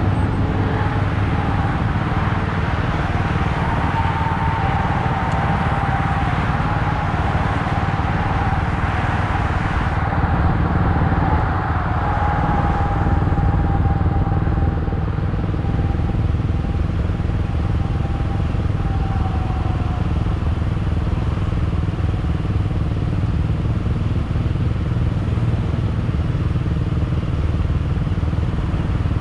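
A motor vehicle running steadily with a constant low rumble, and a thin whine that fades out about twenty seconds in.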